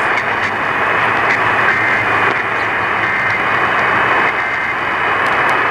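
Steady, loud static hiss from a radio receiver tuned to a weak, noisy NOAA Weather Radio signal.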